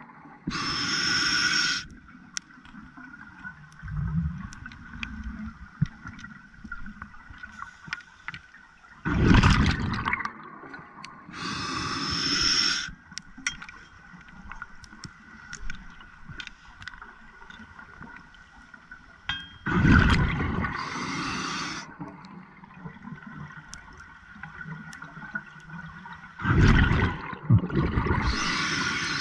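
Scuba regulator breathing underwater: a diver's exhaled bubbles gurgle out roughly every ten seconds, each exhale followed by the hiss of an inhale drawn through the regulator.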